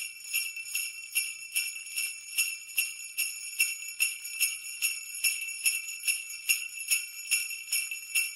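Jingle bells shaken in a steady, even rhythm, about two and a half shakes a second, ringing brightly.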